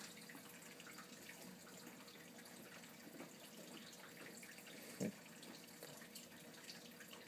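Near silence: room tone with a faint steady hum, scattered faint ticks, and one short knock about five seconds in.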